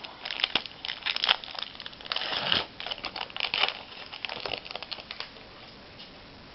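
A foil trading-card pack wrapper being handled and crinkled, with irregular crackling rustles that stop about a second before the end.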